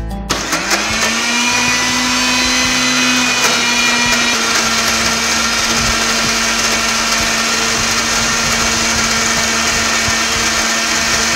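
Electric mixer-grinder with a steel jar blending spinach hummus. The motor spins up over the first second or so, runs steadily with a high whine, and begins to wind down right at the end.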